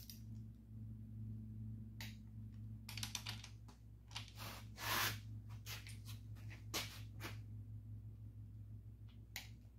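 Hand wrench work on small-block Chevy connecting-rod bolts: a quick run of ratchet clicks, a scrape of metal, and a few sharp single clicks of a click-type torque wrench letting go at its set torque. A steady low hum runs underneath.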